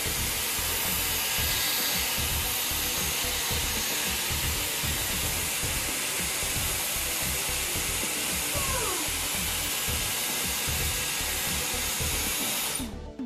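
Dyson Airwrap hair styler with a curling barrel attached, its fan blowing air in a steady rush while hair is wound around the barrel; the airflow cuts off suddenly near the end as it is switched off.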